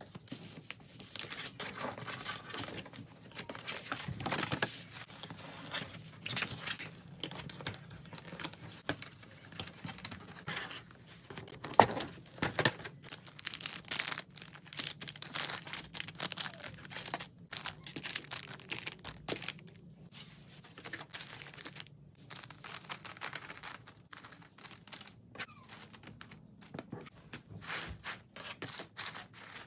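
Hands crinkling and rustling packaging: a white paperboard cookie box being handled, cellophane cookie bags, and crinkle-cut shredded paper filler being spread in the box. Irregular crackles and rustles throughout, with one sharp click about twelve seconds in.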